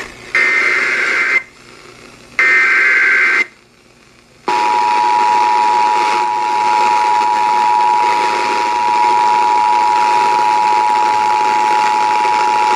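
NOAA Weather Radio Emergency Alert System signal: two bursts of SAME header data tones, a harsh warbling screech about a second long each, with a short gap between. About four and a half seconds in, the long steady warning alarm tone starts and holds. Together they announce the flash flood warning that follows.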